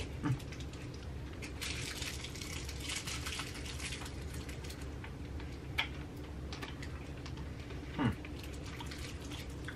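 Quiet wet mouth sounds of hard candies being sucked and clacked against teeth, with scattered faint clicks over a steady low room hum, and a brief falling vocal sound about eight seconds in.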